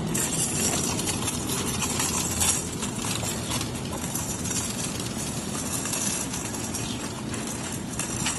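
Wire shopping cart rolling across pavement, its wheels and basket rattling in a steady, dense clatter, with a louder jolt about two and a half seconds in.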